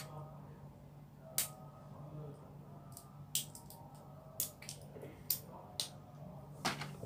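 Lego bricks being handled and fitted together: about a dozen sharp plastic clicks and taps at irregular intervals.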